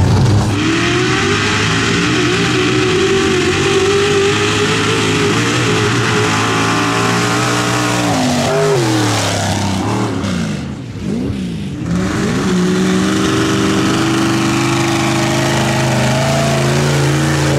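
A mud truck's engine held at high revs, its pitch wavering, then dropping off about halfway through. A few quick blips of the throttle follow before it climbs back to high revs and holds there.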